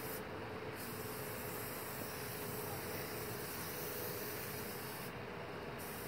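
Aerosol spray-paint can hissing as paint is sprayed, in long bursts with two short breaks, just after the start and about five seconds in.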